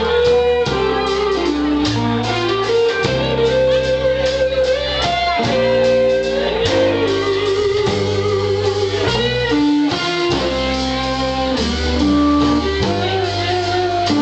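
Live band playing an instrumental passage: an electric guitar lead with wavering, bent notes over bass and drums.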